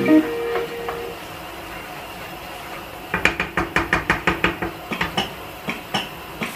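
Wooden spatula stirring food in a nonstick frying pan and knocking against the pan: a quick run of taps, about six a second, starting about three seconds in and lasting some two seconds, then a few scattered knocks.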